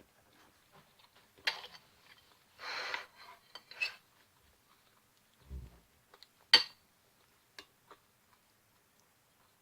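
Cutlery on a plate: scattered clinks and a short scrape, with a soft thump and then a sharp clink about six and a half seconds in.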